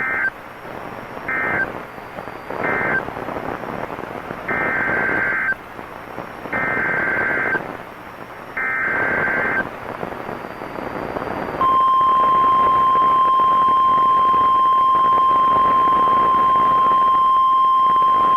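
NOAA Weather Radio Emergency Alert System tones over radio hiss. First come three short buzzing data bursts that close the previous message, then three one-second SAME header bursts announcing a new warning. About twelve seconds in, the steady 1050 Hz Weather Radio warning alarm tone starts and holds.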